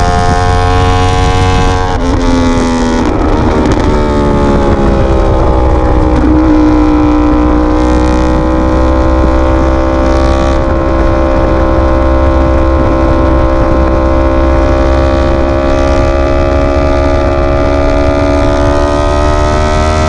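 Yamaha R1 sport bike's inline-four engine running loud under way. Its pitch shifts and sags about two seconds in, as at a gear change, then holds fairly steady and climbs slightly near the end.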